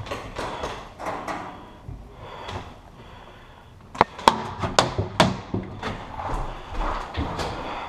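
Paintball fight: a series of sharp pops and smacks, with a loud cluster of four strikes about four seconds in.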